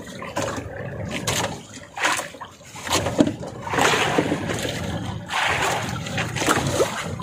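Sea water splashing and sloshing against the hull and outrigger of a small boat, in irregular surges.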